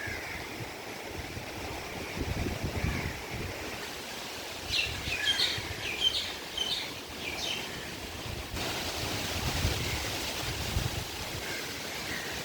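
Steady wash of heavy rain and flowing floodwater, with wind gusting on the microphone. Midway a bird chirps a quick string of short high calls, and later the hiss grows brighter.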